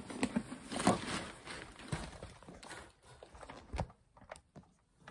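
Handling noise of a canvas tote bag and clothing close to the microphone as the bag is swung onto the shoulder: irregular soft knocks and rustles, the loudest about a second in, dying away near the end.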